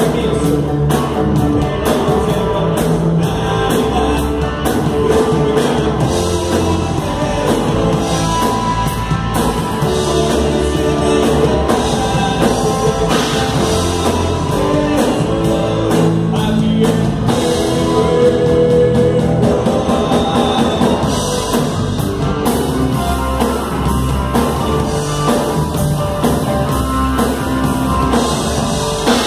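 A live rock band playing, with electric guitar and a drum kit.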